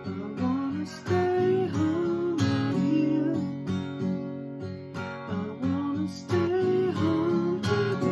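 A man singing a slow melody to a strummed acoustic guitar, with long held vocal notes over a steady strumming rhythm.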